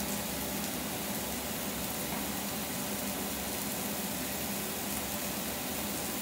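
Steak and mushrooms sizzling steadily in a hot griddle pan, mixed with the even rush of a kitchen extractor fan and a pot boiling under a glass lid.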